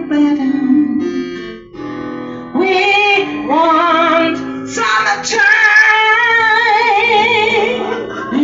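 A woman singing long held notes with strong vibrato over instrumental accompaniment, a quieter dip about a second in, then louder sustained lines from about two and a half seconds in.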